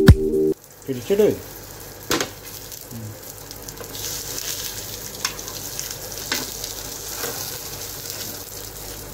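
Beef burger patties sizzling steadily as they fry in oil in a flat pan, with a few sharp clicks of a spoon against the pan. Music cuts off in the first half second.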